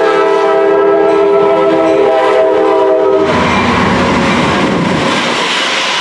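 Amtrak GE P42DC diesel locomotive's horn sounding one long chord of several notes, which cuts off a little over three seconds in. The locomotive and its double-deck passenger cars then pass close by with loud wheel and rail noise.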